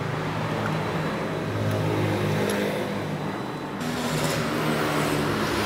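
A motor vehicle engine running steadily, its pitch shifting a little now and then.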